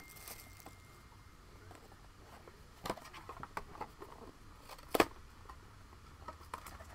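A trading-card box and foil pack being opened and handled: scattered soft clicks and crinkles of cardboard and wrapper, with a sharp snap about three seconds in and a louder one about five seconds in.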